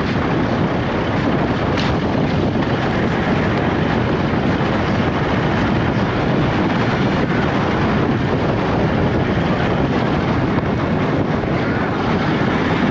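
Steady driving noise of a Toyota LandCruiser Troop Carrier on the move, mixing engine and road rumble with wind on the microphone.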